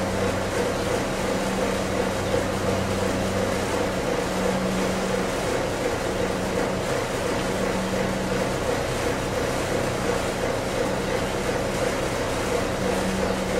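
Steady mechanical drone with a low hum that drops out and comes back several times.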